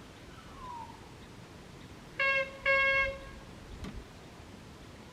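A horn sounding twice on one steady pitch, a short toot and then a longer one, like a vehicle horn.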